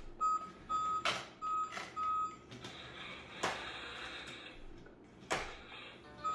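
Electronic toy beeping: a run of about five short beeps at one steady pitch, roughly two a second, then stopping, followed by a brief hiss and a few sharp plastic knocks.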